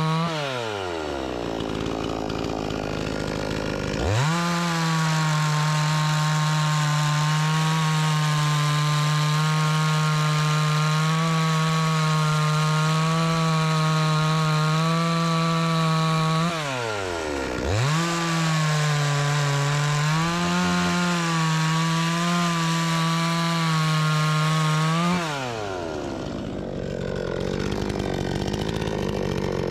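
Dnipro-M two-stroke petrol chainsaw cutting a log lengthwise along the grain, held at full throttle under load with the pitch wavering slightly. It drops to idle three times: just after the start, around seventeen seconds, and for the last few seconds. Each time it climbs back to full revs, the last time at the very end.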